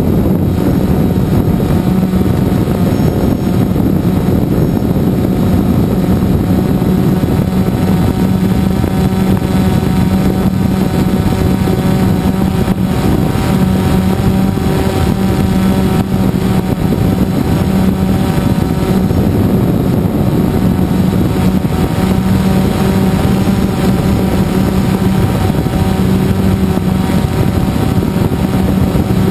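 A drone's electric motors and propellers running steadily as it hovers, heard through the camera on the drone itself: a constant hum at one pitch over a rushing noise.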